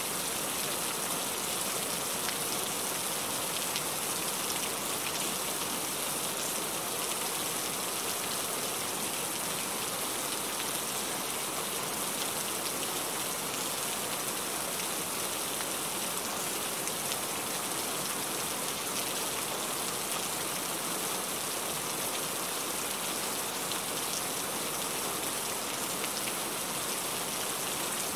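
Heavy rain falling steadily: a bright, even hiss of dense rainfall with no letup.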